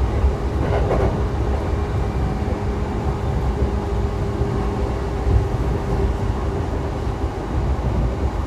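Running noise heard inside a JR E233-7000 series electric motor car: a heavy, steady rumble of wheels on rail with a faint hum held at one pitch.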